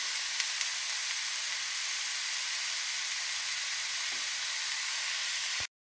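Young green jackfruit frying in oil in a stainless steel pan, sizzling steadily. The sound cuts off suddenly near the end.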